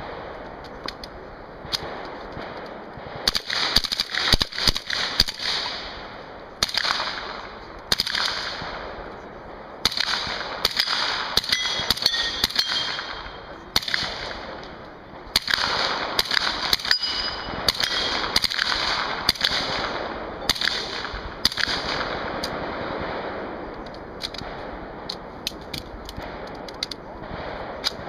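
Submachine gun firing rapid full-auto bursts with some single shots, heaviest through the middle and thinning toward the end, with steel targets clanging when hit.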